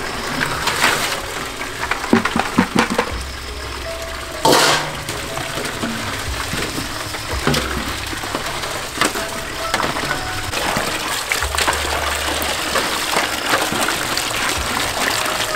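Water running from a tap into a large metal basin, splashing as crabs are washed in a woven bamboo basket, with scattered knocks and sloshes from the handling and one louder splash about four and a half seconds in.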